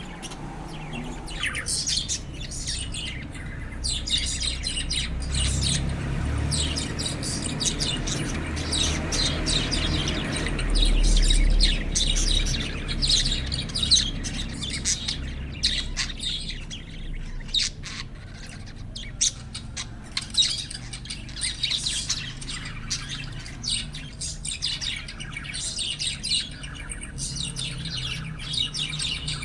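Budgerigars chirping and warbling in quick, overlapping calls, with occasional squawks. A low rumble runs under them for a few seconds in the middle.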